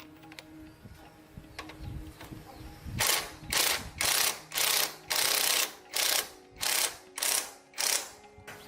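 Rhythmic rasping strokes of a hand tool being worked back and forth, about two a second, starting about three seconds in after a quieter stretch of small knocks.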